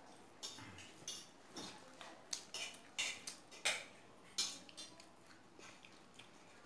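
Cutlery clicking and scraping on a plate during a meal of chow mein: irregular light clicks, loudest about three to four and a half seconds in.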